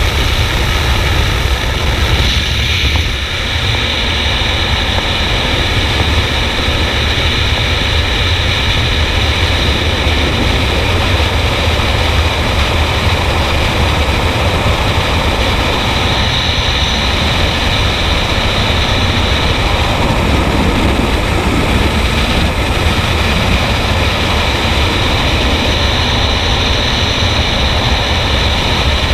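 Loud, steady wind rush on the camera's microphone in skydiving freefall, with heavy low buffeting. It starts at the open door of the propeller jump plane, and the sound dips briefly about three seconds in, around the exit.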